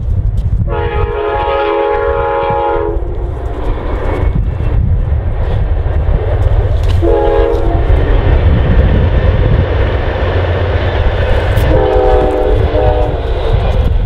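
Train horn sounding three times: a long blast, a short one, then a longer one near the end, over a steady loud low rumble.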